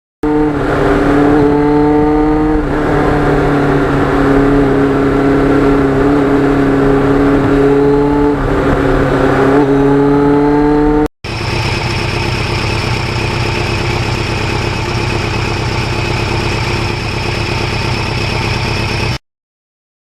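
A motorcycle engine running under way, its pitch rising and falling as it is revved through the ride. About eleven seconds in it cuts to a steady drone at a constant speed with a high whine over it.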